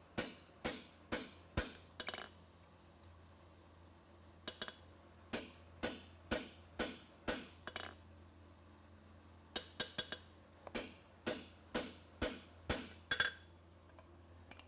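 Hammer striking a handled punch set on a red-hot steel horseshoe on the anvil, marking the toe nail-hole positions. The sharp metallic blows come in three runs of about two a second, with short pauses between.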